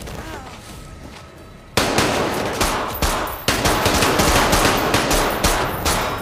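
Film gunfire: a quieter stretch, then rapid repeated gunshots in a long burst starting about two seconds in.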